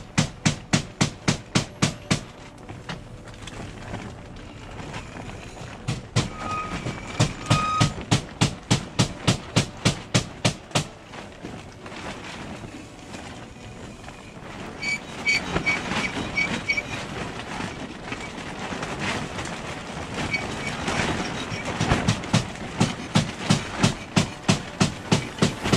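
Hammer driving nails to fix slate scales, in quick regular strikes about four a second, coming in several runs with pauses between.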